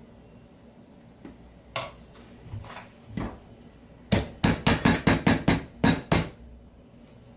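A paper cup packed with mashed potatoes, turned upside down on a ceramic plate, being tapped to unmould it: a few light knocks and scrapes, then a quick run of about nine sharp knocks, roughly four a second, in the second half.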